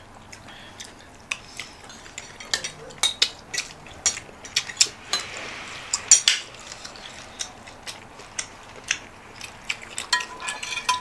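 Spoon and fork clinking and scraping against a bowl and plate in irregular taps, with a short scraping stretch about halfway through.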